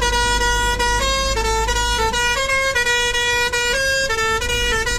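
Bus's musical horn playing a continuous tune, its note stepping up and down several times a second, over the low rumble of the bus engine.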